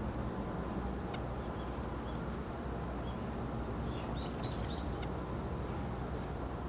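Steady low rumble of a Boeing 767-300 jetliner's engines in flight. Faint high chirps, like a small bird, come in about four seconds in.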